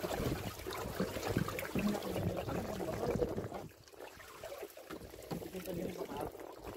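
Water splashing and trickling around a small wooden fishing boat at sea, louder for the first three and a half seconds and then quieter.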